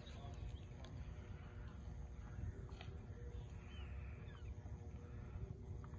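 Quiet open-country ambience: a low wind rumble on the microphone with a few faint bird calls, short chirps and glides in the middle, over a steady high-pitched hum.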